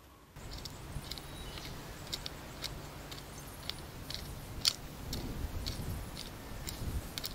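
Hoe working loose soil, with irregular crisp crunches and clicks about two or three a second over a low outdoor rumble.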